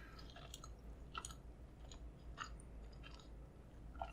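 Close-miked chewing of food: faint, soft wet mouth clicks and smacks, roughly one every half second.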